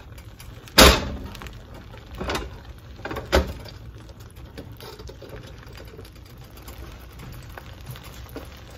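Beaten eggs frying in vegetable oil in a pan with a soft, steady sizzle. Three sharp knocks come in the first few seconds, the first the loudest and briefly ringing.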